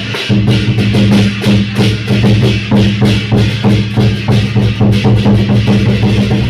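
Lion dance percussion, a large drum with crash cymbals, beating a fast, steady rhythm of several strokes a second to accompany the dancing lions.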